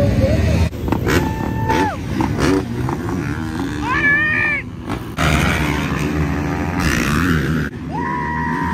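Motocross bike engines running at a starting gate, with a steady low rumble and three revs that climb, hold and drop. The sound breaks off sharply a few times.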